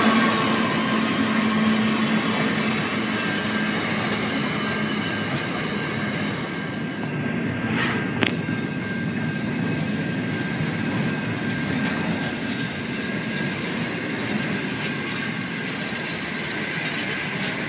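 Freight train wagons rolling past, with a steady noise of steel wheels on rail. The locomotive's engine note fades out in the first couple of seconds, and two sharp clicks come about eight seconds in.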